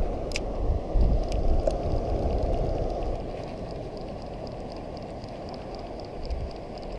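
Wind and water noise on the microphone, with a few sharp clicks in the first two seconds as a cast is made, then a light, regular ticking from the spinning reel being cranked to bring the lure back.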